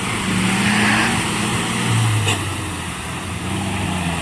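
Off-road 4x4's engine revving hard as it churns through deep mud, its pitch rising and falling, over the wash of mud and water thrown up by the wheels.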